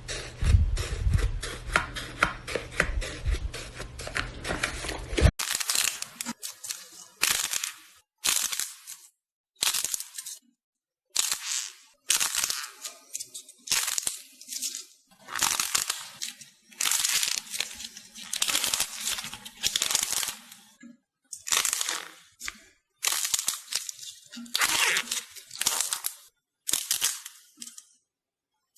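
Slime being squished and pressed by hand, making crackling, clicky pops. For the first five seconds or so the clicks come thick and fast over a low rumble. After that they come in separate crackly squishes, about one a second.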